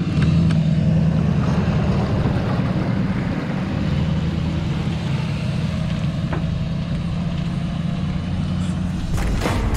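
Pickup truck engine running steadily under load as it pulls a bass boat on its trailer out of the water and up the launch ramp.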